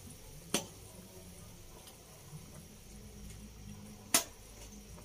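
A pot of soup boiling, a faint steady bubbling, with two sharp clicks, one about half a second in and a louder one about four seconds in.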